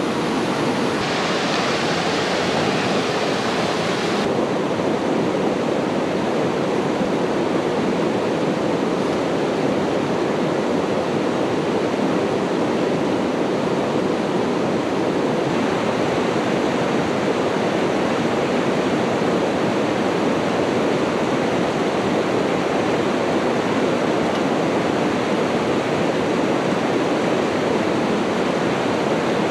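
Steady, loud rushing of water with no break. A brighter hiss on top of it drops away abruptly about four seconds in.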